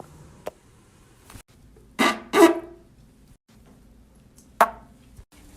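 Two short pitched gas sounds from a person, back to back, the second falling in pitch; a sharp click follows near the end.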